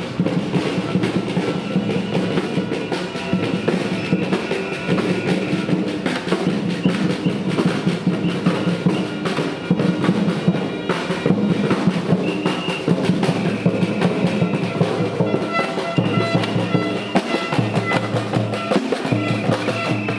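Music with a drum beat and sustained pitched instrument tones.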